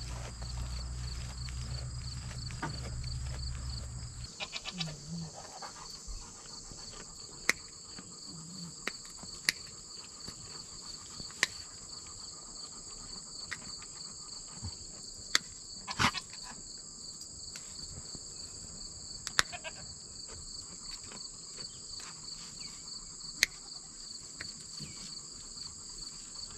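Sharp snips of hoof trimming shears cutting a goat's hooves, a single click every few seconds, over a steady high chorus of insects.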